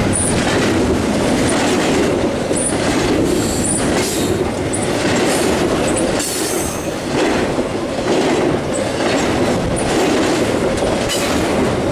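Intermodal freight cars rolling past: a steady rumble of steel wheels on rail with short high wheel squeals every second or so.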